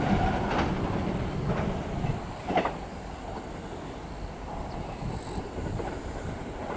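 Electric train crossing a steel girder railway bridge: wheels clack over rail joints three times about a second apart, the last one loudest, then the rumble fades as the train draws away.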